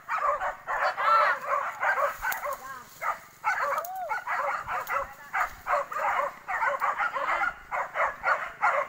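Several hunting dogs barking and yelping in quick, overlapping succession, a pack giving tongue while chasing a wild boar, with a brief lull a few seconds in.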